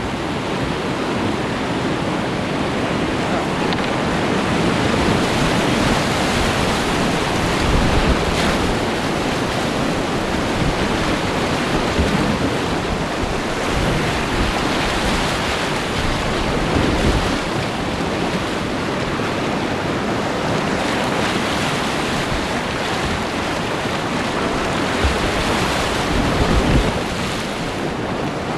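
Whitewater rushing and splashing around a kayak running a steep creek rapid, heard close up at water level, with wind buffeting the microphone. A few dull thumps stand out in the steady roar.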